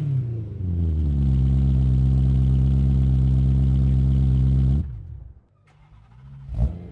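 BMW E90 M3's 4.0-litre V8, breathing through a Challenge stainless-steel exhaust with the OEM exhaust mod, drops back from a rev and settles to a steady idle. The sound cuts off about five seconds in, and a short engine blip from a second M3 comes in near the end.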